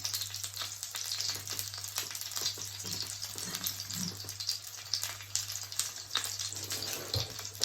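Salmon sizzling and crackling in a hot frying pan, a dense run of fine irregular pops, over a steady low hum.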